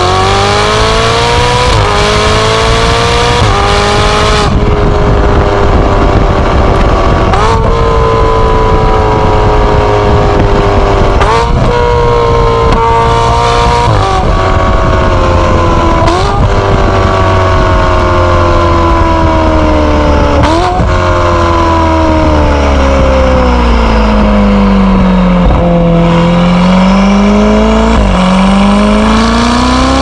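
Ferrari 488 GTB twin-turbo V8 heard at the tailpipes through a Fi Exhaust valvetronic catback with catless downpipes, driven on the road. The exhaust note rises and falls with engine speed, jumps sharply in pitch at several gear changes, sinks low about 25 seconds in, then climbs steadily as the car accelerates again.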